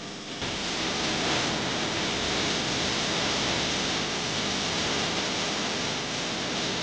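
Steady, loud rushing noise with no clear tones or beat, starting about half a second in.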